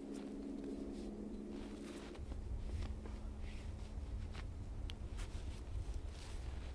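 Clothing rustling as a T-shirt is pulled on and a fleece jacket is picked up, in scattered short brushes of fabric, with a low rumble setting in about two seconds in.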